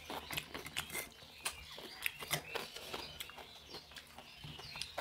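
Eating sounds: close-up chewing and lip smacks, with fingers mixing rice on steel plates, heard as an irregular run of many short clicks.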